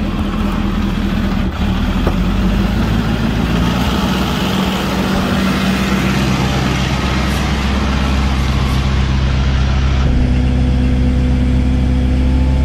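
A Ford 6.7 L Power Stroke turbo diesel idling steadily. About ten seconds in its sound changes to a steadier, slightly louder hum with a higher tone, as the power take-off is switched on to run the bucket's hydraulics.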